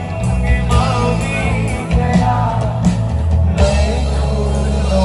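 Live band playing amplified music with a singer, with deep bass and a sung melody over it, heard from within the crowd.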